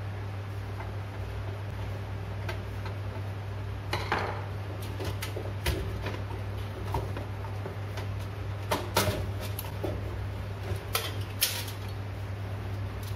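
Irregular clicks and metallic clinks of hands working inside a steel desktop PC case, pulling cable connectors and freeing the motherboard. The clicks start about four seconds in, with the sharpest near the end, over a steady low hum.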